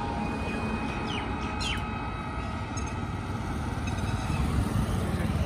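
Road traffic passing, a steady low rumble of vehicle engines and tyres that grows louder near the end as an Isuzu D-Max pickup comes close. Two short bird chirps sound about a second in.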